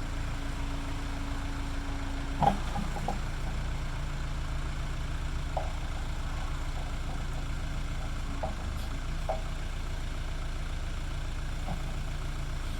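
Case 580E backhoe engine running steadily, its low note shifting a little about two and a half seconds in. A short sharp knock comes at the same moment, and a few faint clinks follow later.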